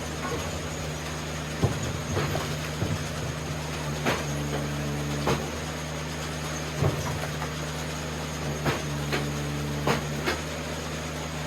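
Engine-driven Eastonmade 37D hydraulic wood splitter running steadily while wet poplar rounds are split, with sharp cracks and knocks of wood giving way and pieces falling. Twice the machine's tone changes and holds for about a second, as it comes under load on a split.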